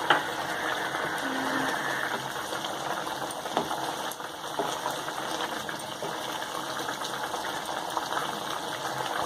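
Chicken gravy simmering in coconut milk in a pan: a steady bubbling hiss, with a few light clicks.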